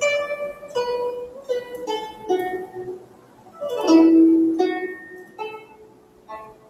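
Intro music: a plucked string instrument plays a slow melody of single notes, each ringing and then fading. A louder, lower note comes about four seconds in.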